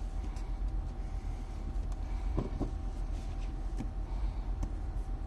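Steady low background rumble with a faint hum, and a few faint clicks and taps from unboxed items being handled.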